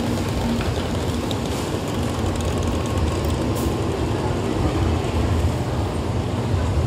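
Tokaido Shinkansen train pulling out of the station and running past the platform doors, a steady low rumble of motors and wheels that grows a little louder as it gathers speed near the end.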